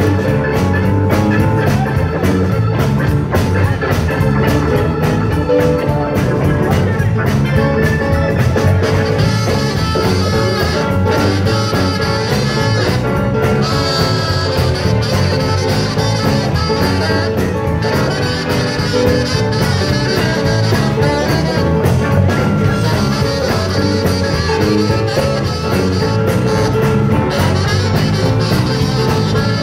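Live blues-rock band playing an instrumental passage at a steady level, with drum kit, electric guitar, bass guitar, keyboards and saxophone.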